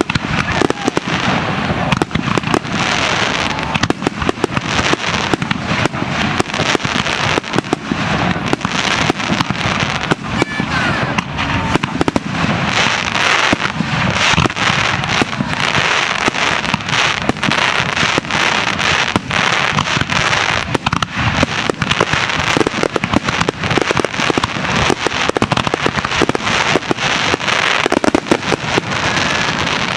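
A fireworks display with shells bursting in rapid, continuous succession: many sharp bangs close together, over crackling that swells and fades several times.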